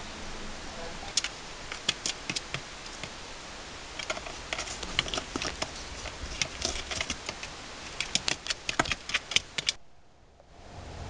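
Sharp, irregular clicks and taps in quick flurries, with a rhythm like typing, over a steady low hiss. The clicking stops just before the end, and the sound drops almost to silence before the hiss returns.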